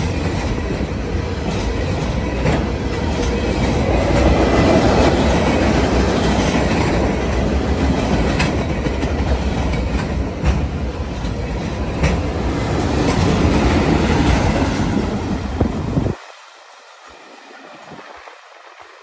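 Freight cars of a passing train rolling by at speed: steady rail noise with wheels clacking over the joints and occasional sharp clanks. About 16 seconds in the noise drops off sharply, leaving only a faint rumble.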